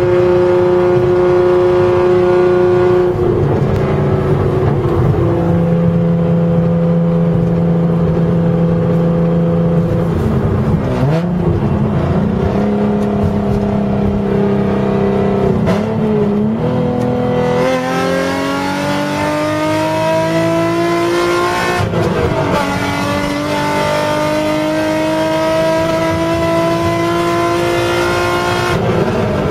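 Nissan 350Z's 3.5-litre V6 heard from inside the cabin under way. The engine note holds roughly steady for the first half, then climbs steadily as the car accelerates hard. It drops sharply at an upshift a little past two-thirds of the way in, climbs again, and drops at another shift near the end.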